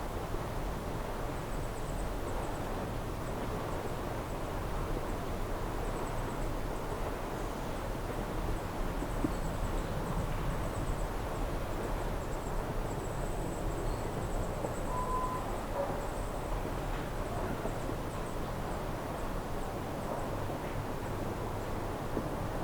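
Lakeshore outdoor ambience: a steady rushing haze of breeze and lapping water, with faint high-pitched chirping on and off. A brief short call sounds about fifteen seconds in.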